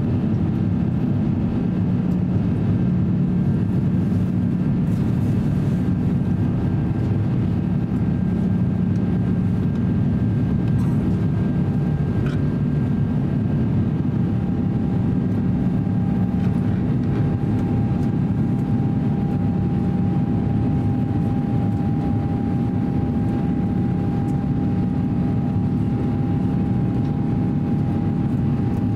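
Steady cabin noise of an Airbus A350-900 climbing after takeoff: its Rolls-Royce Trent XWB engines and rushing air heard from inside the cabin as a deep, even drone. A thin steady whine joins about halfway through.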